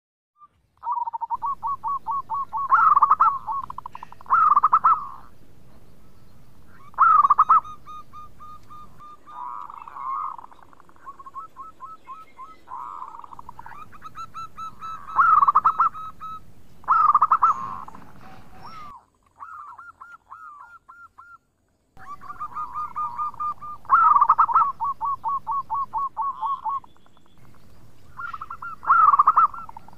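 Zebra dove (perkutut) cooing: rapid runs of short staccato coos, broken every few seconds by louder, fuller phrases.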